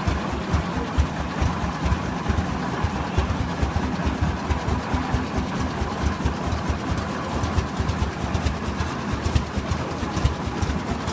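Rumley OilPull tractor's slow-speed kerosene engine running under way, a steady train of low exhaust beats as the steel-wheeled tractor drives along.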